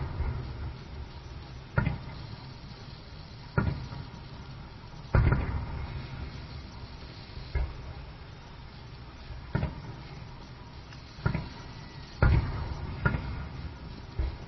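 Aerial firework shells bursting: deep booms every one to two seconds, each trailing off, with three coming close together near the end.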